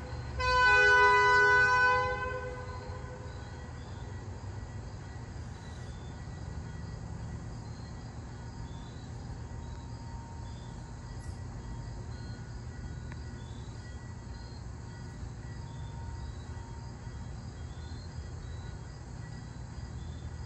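Locomotive air horn sounding one blast of about two seconds, several notes at once, followed by the steady low rumble of the train running.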